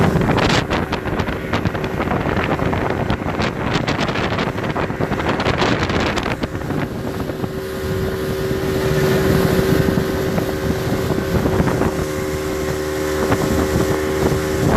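Speedboat engine running steadily at speed. Wind buffets the microphone heavily for the first six seconds or so, then eases.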